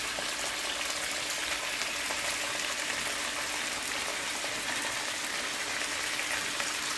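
Chicken pieces and sliced onions frying in hot ghee in a pan: a steady sizzle with a few faint crackles.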